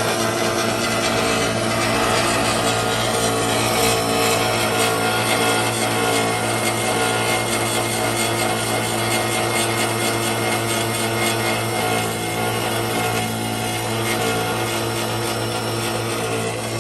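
Roll-paper sheet cutter machine running: a steady motor hum under a dense, even mechanical noise with fine rapid ticking in it.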